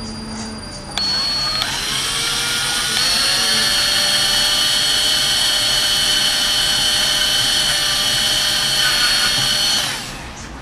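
Power drill spinning up about a second in, running steadily for several seconds, then stopping near the end, as it drills powder coating out of a bike frame's zerk-fitting hole with a slightly larger bit.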